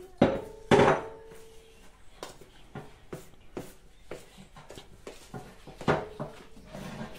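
Stainless steel pot clanking against a tiled counter as a hand mixes flour dough in it: two loud clanks just after the start and another about six seconds in, each leaving the pot ringing, with lighter knocks in between.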